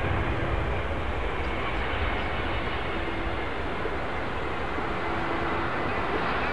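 Jet engines of an Airbus A321neo airliner on final approach to land, a steady, even rumble with a faint hum.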